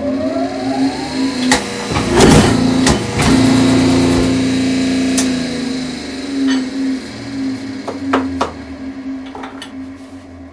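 Clicker press running. Its motor's whine finishes rising in pitch and then hums steadily. About two seconds in there are heavy knocks as the swing-arm head is brought down to stamp a coupon out of a geosynthetic clay liner with a steel rule die. Sharp clicks and clunks follow later as the head is worked and swung back, and the hum fades near the end.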